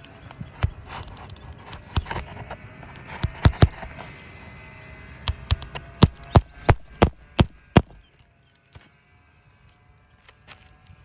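Sharp knocks of hand tools working on asphalt roof shingles during a repairability test: scattered strikes, then a run of six evenly spaced blows, about three a second, that stops suddenly near the end.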